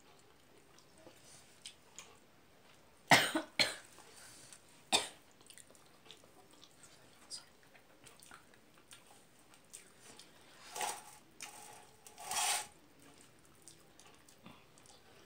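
A woman coughing during a meal: a quick cluster of three coughs about three seconds in, one more a couple of seconds later, and two longer coughs past the ten-second mark, with soft chewing between.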